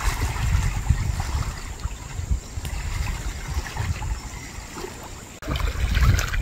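Outdoor river ambience: wind buffeting the microphone in uneven gusts, with water lapping. There is a brief drop just over five seconds in, after which it is louder.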